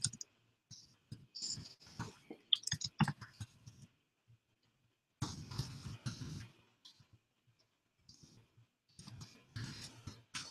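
Light, irregular clicks and taps of a computer keyboard and mouse, coming in short scattered runs with pauses between them.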